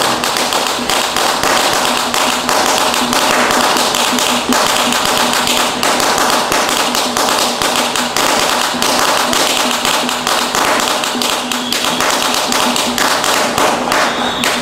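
A long string of firecrackers going off, a dense, rapid, continuous crackle of sharp bangs.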